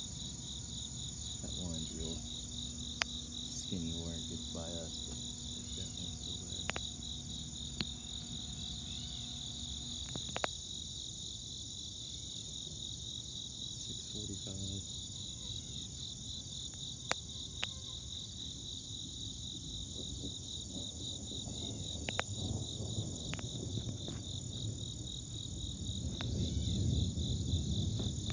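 Chorus of insects, a steady, rapidly pulsing high trill. A low rumble builds underneath and grows louder near the end.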